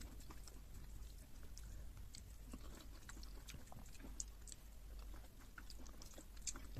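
Close-miked eating sounds: soft chewing with many small wet mouth clicks and smacks, as of fufu with soup being eaten, over a low steady hum.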